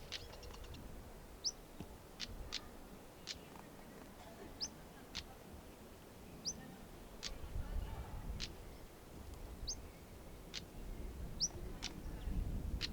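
A small bird calling: short, high, upward-sliding whistles repeated every second or two, alternating with sharp ticking notes.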